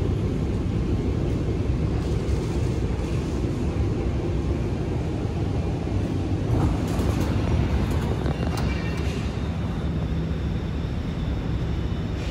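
Cabin noise of an Alstom Movia R151 metro train running between stations: a steady low rumble from the wheels and running gear on the track.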